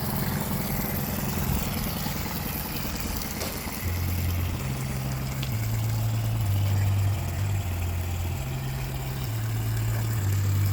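2012 Suzuki 9.9 hp long-shaft four-stroke outboard idling steadily just after a restart, running well after a new water pump impeller, fuel filter, fuel pump and a carburettor service.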